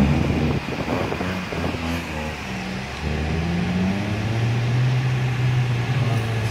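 Car driving slowly, heard from inside the cabin: a steady engine hum and road noise, the hum's pitch shifting a few times.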